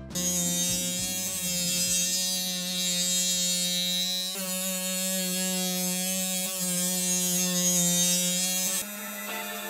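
Handheld rotary tool with a sanding wheel running at speed and grinding the edges of resin-coated cardboard: a steady high whine over a gritty hiss. It stops about a second before the end, leaving background music.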